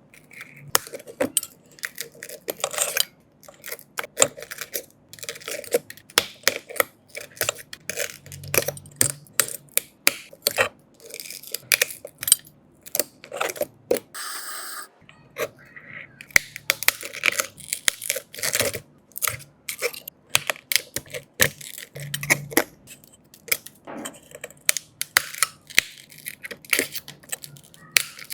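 Rapid, irregular clicks, taps and light clinks of small repair tools and parts being handled on a smartphone during back glass repair work, with short pauses between bursts.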